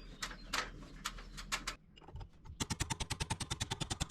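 Rapid, even clicking, about ten clicks a second, from the mixing ball rattling in an aerosol can of penetrating spray being shaken. It starts about two and a half seconds in, after a few scattered knocks.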